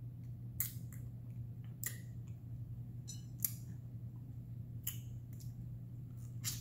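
Wet clicks and smacks of a mouth sucking on a sour lemon wedge, about half a dozen short ones spread over a few seconds, above a steady low hum.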